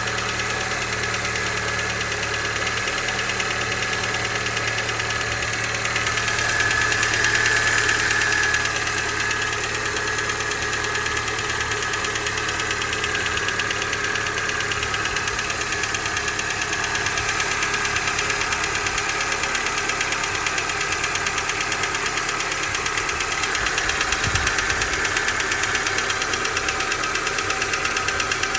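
2019 Honda HR-V engine running with a fast, even ticking or knocking, the strange noise the owner is recording; it swells louder briefly about a quarter of the way in.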